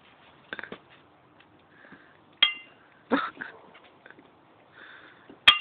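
A beer being chugged straight from the bottle: faint gulping noises and small knocks, with two sharp ringing clinks of the bottle, about two and a half seconds in and again near the end.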